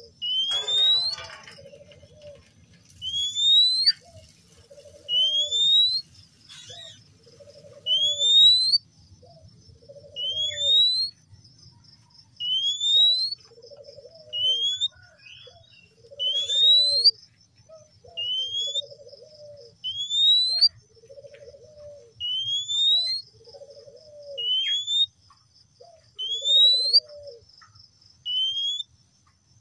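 Male Oriental magpie-robin (kacer) calling: a clear, rising whistled note repeated about every two seconds, with short, lower rasping notes in between.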